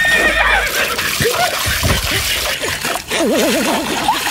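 Water poured from a metal pot splashing over a man's head and into a large basin below. A wobbling tone, like a comic sound effect, comes in about three seconds in and runs for about a second.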